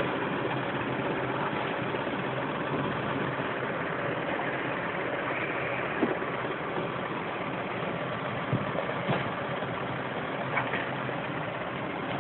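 A vehicle engine running steadily at idle or low speed, with a few faint knocks about halfway through and near the end.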